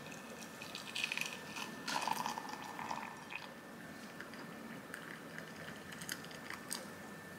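Hot water poured from a metal kettle into a glass mug over a tea bag: a steady, faint splashing trickle, loudest around one to three seconds in.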